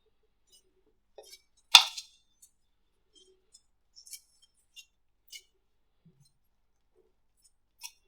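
Slime being handled, with sparse small clicks and crackles and one sharper, louder click a little under two seconds in.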